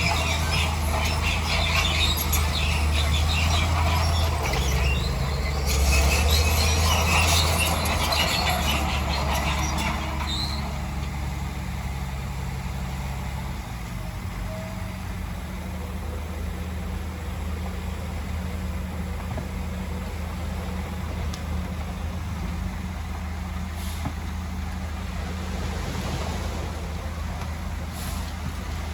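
Heavy earthmoving machine's engine running steadily under load, with clattering and squealing over it for the first ten seconds or so, then settling to a plain steady drone.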